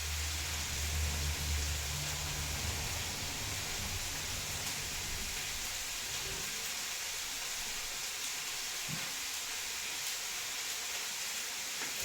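Beef goulash with onions and peppers frying in a pot: a steady sizzling hiss. A low hum sits under it for the first half and fades out about halfway through.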